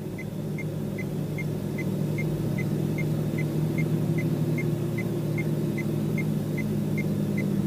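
Car engine idling steadily, heard from inside the vehicle's cab, with a faint, high-pitched tick repeating about two and a half times a second.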